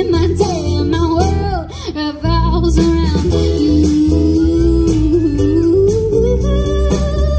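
Live band performance: a woman singing lead over acoustic and electric guitars, bass and drums. There is a short drop about two seconds in, then the full band comes back in with a heavier bass.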